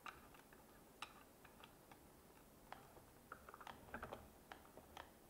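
Faint plastic clicks and taps of a manual hand juicer's parts being handled and locked together, scattered, with a short cluster a little past halfway.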